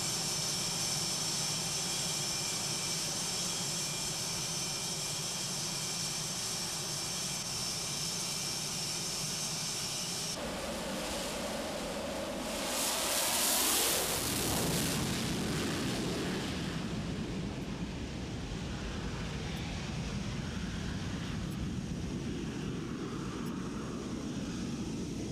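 Jet aircraft on an aircraft carrier's flight deck: a steady jet engine whine with high tones. About ten seconds in it changes abruptly to a jet's roar that swells to a peak and then settles into a lower, duller rumble.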